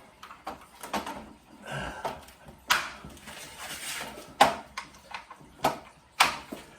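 Hand sanding of fiberglass with 80-grit sandpaper: irregular short scraping strokes and sharp knocks, about six strong ones spread through the stretch, the loudest a little past the middle.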